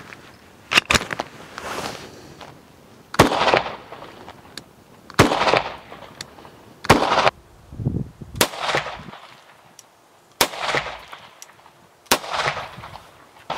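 Hi-Point C9 9mm pistol firing 115 grain ball: a string of single shots about every two seconds, each trailing off in an echo.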